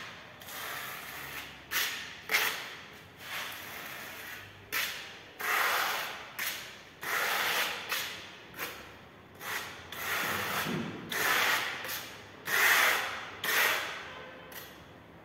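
Plastic spatula scraping orange decorative paint across a stencil on a plastered wall, in a quick, irregular series of short scraping strokes.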